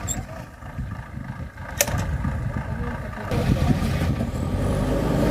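Bulldozer engine running at a demolition site, a steady low rumble that grows louder about three seconds in, with one sharp click about two seconds in.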